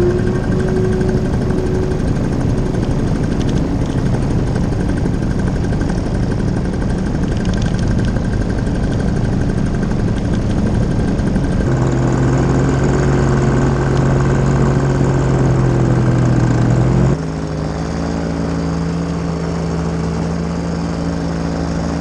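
A small engine droning steadily in flight, over a steady rush of noise. Its pitch and tone shift abruptly twice, about 12 and 17 seconds in.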